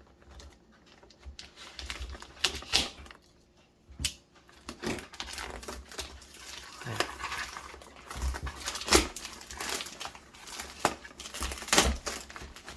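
Cardboard boxes and packaging being handled and opened: crinkling and rustling with scattered knocks and taps.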